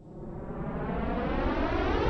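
Synthesized whoosh sound effect swelling steadily louder, its tone sweeping up and down as it grows.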